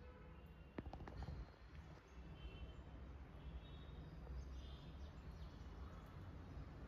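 Faint, soft chirps from Alexandrine parakeets feeding on a corn cob, over a low steady hum, with a few sharp clicks about a second in.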